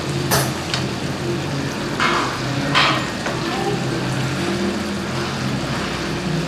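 Snail curry sizzling in a pan on a gas stove, with a metal spoon scraping in the pan a few times in the first three seconds, over a steady low hum.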